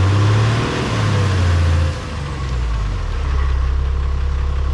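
4x4 off-road vehicle's engine under throttle for about two seconds, then easing off and settling to a steady idle.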